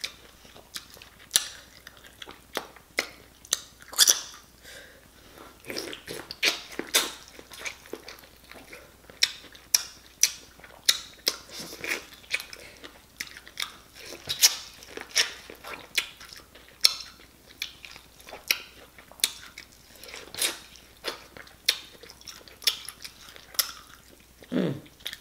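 Close-up eating sounds of sauce-covered corn on the cob: biting kernels off the cob and chewing, a string of short, sharp crunches and wet mouth clicks at an uneven pace.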